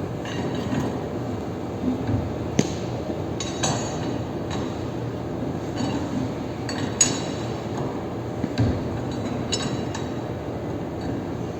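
Irregular metal-on-metal clinks and hammer-like knocks, several ringing briefly, from hand tools working on a roller coaster wheel assembly, over a steady background hum.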